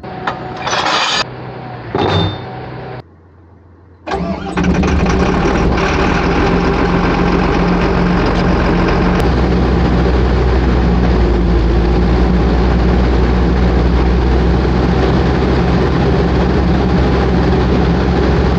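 A large diesel engine on a logging machine cranks and starts about four seconds in, then runs steadily at idle. It is preceded by two short noises.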